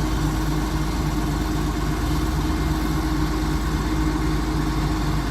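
Terex A600 60-ton mobile crane's diesel engine idling steadily.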